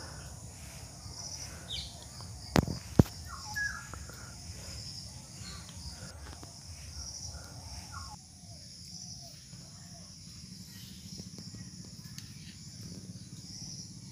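Background ambience with no speech: a steady, high-pitched pulsing chirr over a low hum, a few short calls, and two sharp clicks about two and a half and three seconds in.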